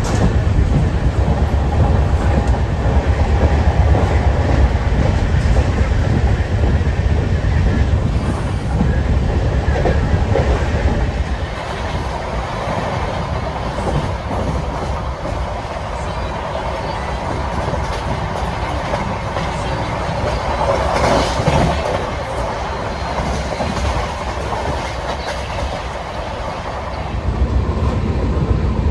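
Passenger train running on the rails: continuous rolling and rattling of the carriages, with a heavy low rumble for the first eleven seconds or so that eases to a lighter rattle, then comes back near the end.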